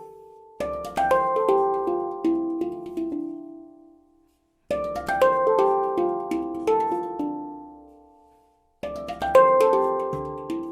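Baopan 16-note handpan (pantam) tuned to the D Amara scale, played by hand: three quick runs of struck notes that ring and die away, with a brief silence between runs and a low thump under the strikes.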